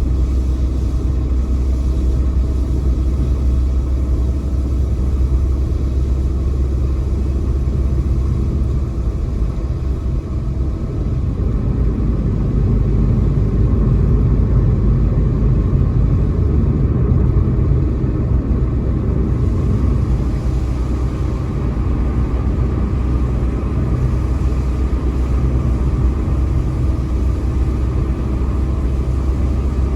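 Car driving on wet roads: a steady low rumble of road and engine noise, swelling a little for several seconds around the middle.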